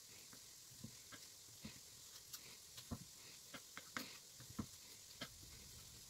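Kitchen knife cutting through floured, folded noodle dough and tapping a plastic cutting board: a soft knock at each stroke, about ten irregular cuts, some louder than others.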